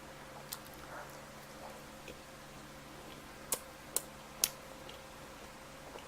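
Close-miked eating of pizza: sharp mouth clicks, three of them in quick succession about halfway through, over a low steady hum.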